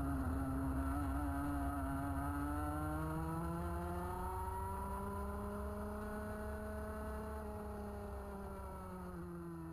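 Rotax Max 125cc two-stroke kart engine running on track, heard onboard. Its pitch dips through a corner, climbs slowly along the straight, then eases off again near the end, while the whole sound gradually fades.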